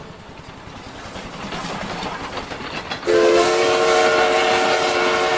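A train rolling along the rails, its rumble growing louder, then a train horn sounding one long steady chord from about three seconds in.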